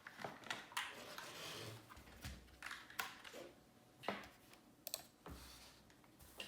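Typing on a computer keyboard: individual keystrokes clicking at an irregular, unhurried pace, with a couple of heavier, deeper thuds among them.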